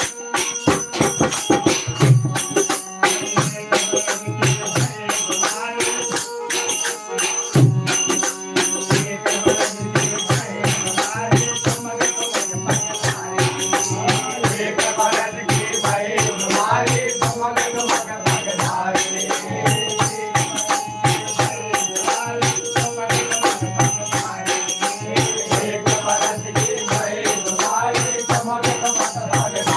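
Live devotional folk music: a harmonium playing a melody over a steady hand-drum beat, with fast, continuous jingling percussion.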